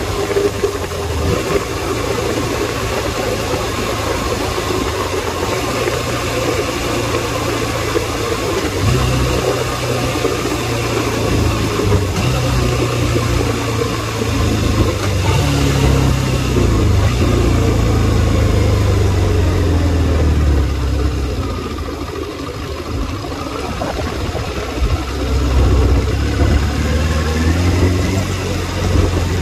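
Suzuki Bandit 600 motorcycle's inline-four engine running under way, its pitch rising and falling several times with throttle and gear changes, under wind noise. It dips quieter for a few seconds about two-thirds of the way through.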